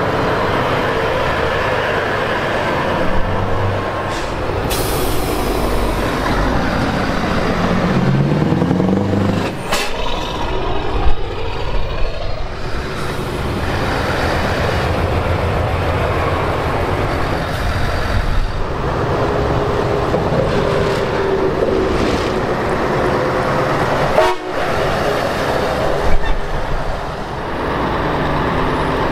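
Heavy show trucks' diesel engines running past one after another, one revving up about eight seconds in, with air horns blown near the start and again a little past the middle. A short hiss of air sounds about five seconds in.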